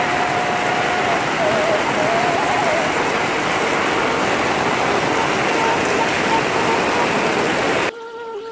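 Heavy rain pouring down, a dense, steady hiss. It cuts off abruptly near the end.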